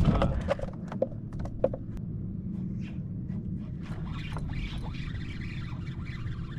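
Steady low wind and water noise around a small open boat, with a few light clicks in the first two seconds.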